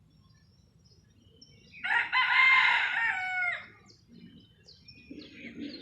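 A rooster crowing once, a single drawn-out crow of nearly two seconds starting about two seconds in, with faint small-bird chirps around it.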